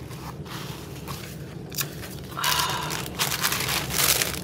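Crinkling and rustling from craft packaging being handled: a card of lace trim and the plastic wrapping around it. There are a few rough bursts, louder in the second half.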